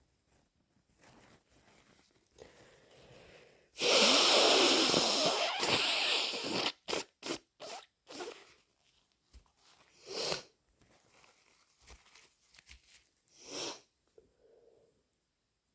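A congested person with a bad head cold blows a snotty nose hard into a tissue. The blow starts suddenly about four seconds in and lasts about three seconds, followed by a few short, quieter nasal sniffs.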